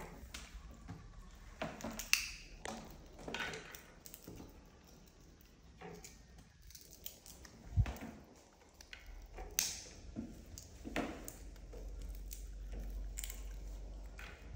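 Scattered light clicks, taps and rustles of snack pieces and hands on a plate and tabletop, with one louder knock about eight seconds in.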